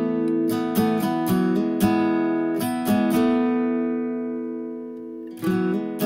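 Background music of a strummed acoustic guitar. Several quick strums are followed by a chord left ringing and fading for about two seconds, then the strumming picks up again near the end.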